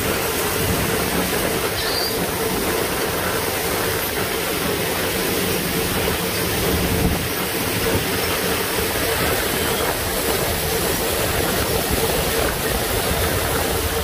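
Amadas 9980 peanut combine's pickup header and auger running while picking up windrowed peanuts: a steady mechanical rumble and rattle with a constant hum.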